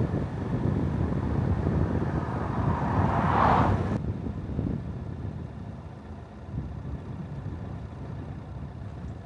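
Car on the road: a steady low rumble of engine and road noise. A louder rushing swell comes about three seconds in and breaks off sharply about a second later.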